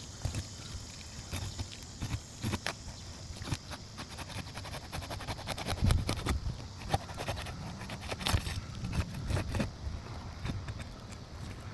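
Irregular clicking, clinking and knocking over a steady low rumble, with the loudest knocks about six and eight seconds in.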